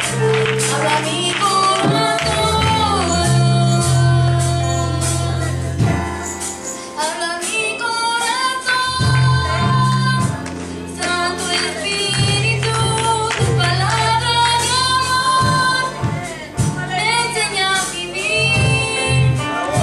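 Mixed church choir of men and women singing a worship song over instrumental accompaniment, with held bass notes that change every few seconds and steady percussion hits.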